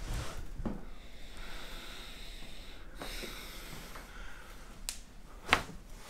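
Soft breathing while the head is positioned, then a single sharp click about five and a half seconds in: a little, deep pop from the neck joint during a chiropractic cervical adjustment.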